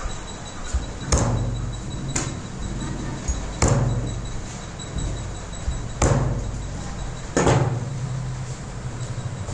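A cleaver chopping through chicken onto a chopping block: about six sharp, irregularly spaced chops, four of them heavy.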